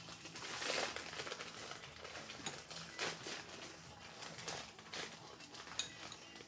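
Plastic instant-noodle packets crinkling and rustling as they are handled and torn open, in irregular bursts.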